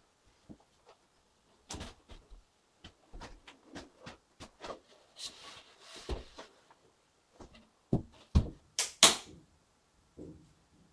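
Drywall sheet being handled and test-fitted around a window opening: knocks and scuffs of the board against the wooden framing, with a scraping hiss about five seconds in. The loudest knocks come in a quick run about eight to nine seconds in.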